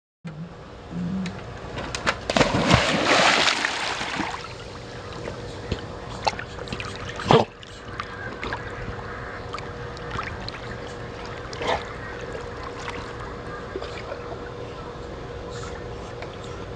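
Dogs paddling in a swimming pool, the water splashing and sloshing around them. The splashing is loudest for a couple of seconds near the start.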